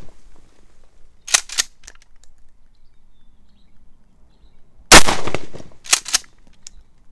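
Mossberg 590 Shockwave 12-gauge pump-action firearm shot once about five seconds in, a loud blast. About a second after that shot, and again about a second and a half in after a shot just before, come two quick clicks a quarter second apart: the pump being racked back and forward.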